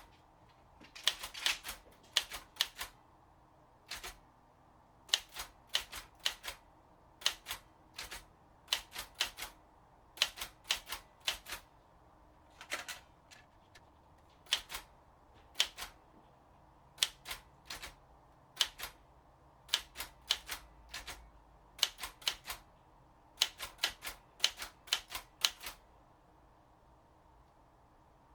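Underwood 315 manual typewriter being typed on: sharp key strikes in short, uneven runs with brief pauses between them, stopping a few seconds before the end.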